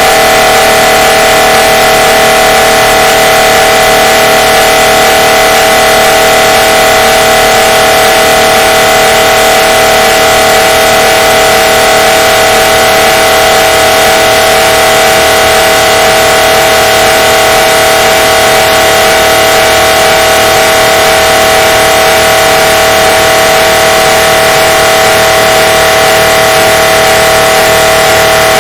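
MRI scanner's gradient coils giving a steady, unchanging droning tone, boosted to near full loudness and distorted.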